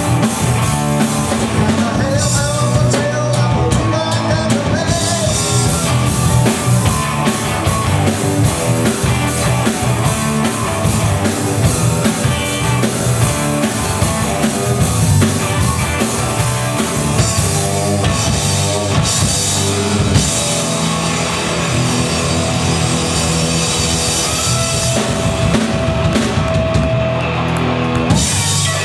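A live rock band playing: electric guitars, bass guitar and drum kit, loud and continuous.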